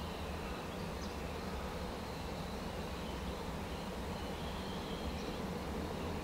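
Faint insect chirring, a thin steady trill, over a steady low outdoor background rumble.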